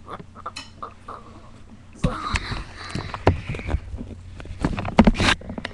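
Rustling, scraping and knocking close to the microphone as the webcam is handled and moved about. It starts about two seconds in, with the loudest knocks near the end.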